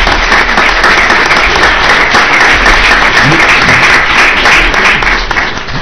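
Audience applauding, a steady round of clapping that dies away near the end.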